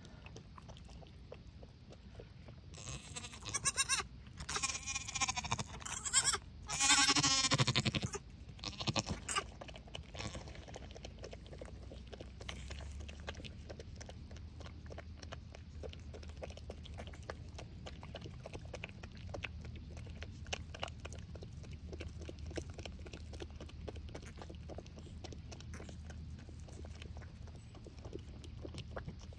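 Dairy goat bleating several times over about five seconds, starting about three seconds in, the last call the loudest and falling in pitch at its end. After that only scattered small clicks and rustles over a faint low rumble.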